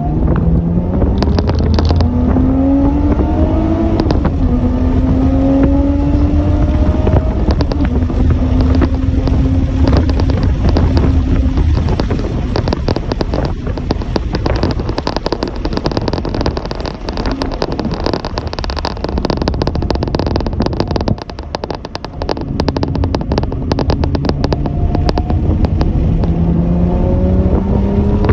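A vehicle engine pulling hard, its pitch climbing and then stepping down as it shifts up, holding steady for several seconds, dropping off briefly, then climbing again near the end. Heavy wind buffeting on the microphone runs underneath.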